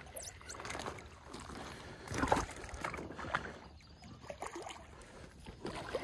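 Water splashing and sloshing with scattered knocks, loudest a little over two seconds in: a hooked freshwater drum being brought in at the water's edge.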